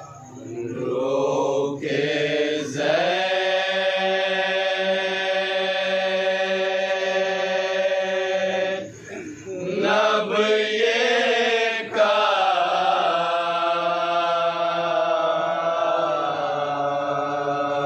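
A voice chanting a Shia nauha (mourning lament) in long, steady held notes, with a few short breaks between phrases.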